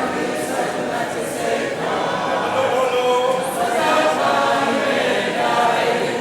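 A group of voices singing together in chorus, many voices layered at once.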